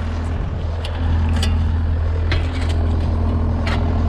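A heavy engine running steadily with a low, even hum. A few short scrapes or clinks, like tools on concrete, come at scattered moments over it.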